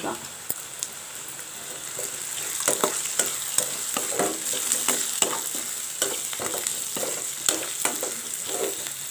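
Onions, green chillies and ginger-garlic sizzling in groundnut oil in a steel kadai, while a perforated steel ladle stirs them, scraping and knocking against the pan. The stirring picks up about two seconds in, with a scrape or knock roughly every half second over the steady sizzle.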